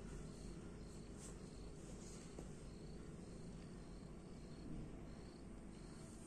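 A cricket chirping faintly, short high chirps about twice a second, over a low background hum.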